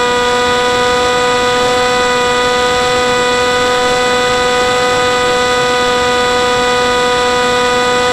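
FPV model aircraft's motor and propeller heard from the onboard camera, holding a steady whine at constant throttle over a hiss of passing air.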